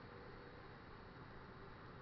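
Near silence: faint, steady outdoor background hiss.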